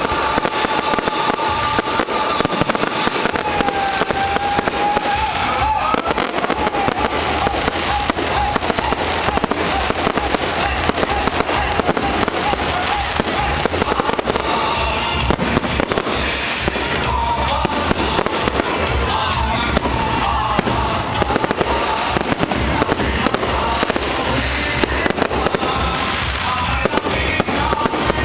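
Fireworks salute: a continuous dense run of bangs and crackling bursts, with music and voices heard underneath.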